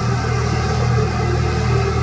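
Jet engines of an Airbus A330 airliner passing overhead, a loud, steady rumble.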